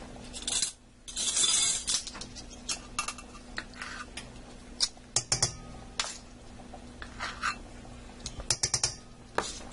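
Metal measuring spoons clinking and tapping as baking powder is scooped and added to flour in a stainless steel mixing bowl: a scatter of light clicks, with a short scrape about a second in. A faint steady hum runs underneath.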